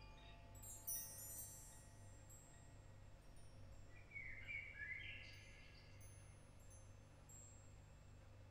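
Metal chimes ringing softly, a shimmering cluster of high tones about a second in that slowly fades, over a low steady hum. A few short chirping calls come around four to five seconds in.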